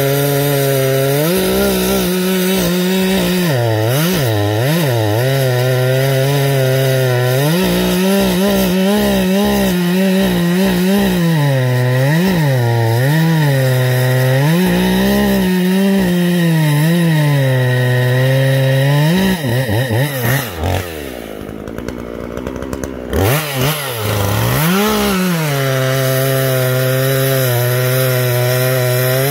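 Gas chainsaw with a 20-inch bar bucking a large log, its engine pitch rising and falling as the chain bogs under load and frees up in the cut. About twenty seconds in it drops to idle for a couple of seconds, then revs back up and carries on cutting.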